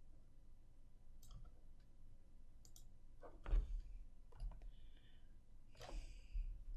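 A few faint computer mouse clicks, scattered irregularly, the loudest about three and a half seconds in.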